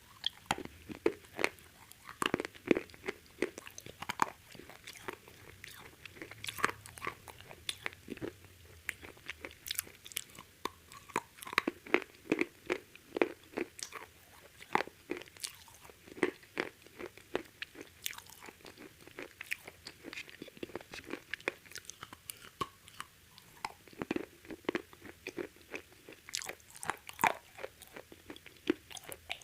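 Close-up crunching and chewing of KFC fried chicken: the crispy breaded coating crackles sharply and irregularly with each bite, in clusters of crunches with short pauses between.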